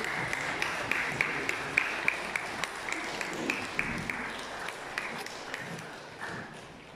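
Congregation applauding, a dense patter of hand claps that thins and fades away near the end.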